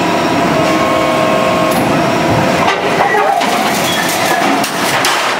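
Large hydraulic guillotine shear running: a loud, steady mechanical noise with some steady tones in the first couple of seconds and a run of sharp knocks in the second half.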